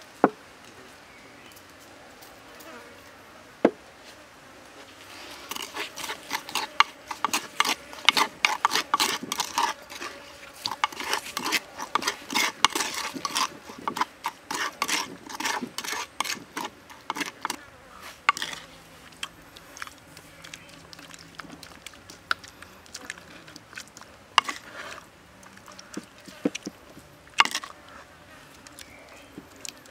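A spoon stirring and scraping a wet chili, garlic and sauce mix in a wooden mortar. There are two sharp knocks near the start, then a dense run of quick clicks and scrapes for about twelve seconds, thinning out to scattered taps.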